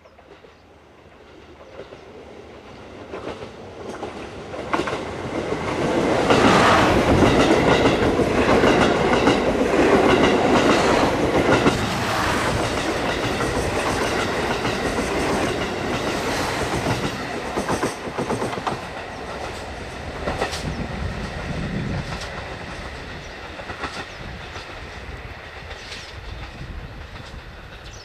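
KiHa 183 series diesel express train approaching and running through at speed. Its diesel engines and wheels grow loud, with wheels clacking over rail joints as the cars pass. The sound fades away in the last third.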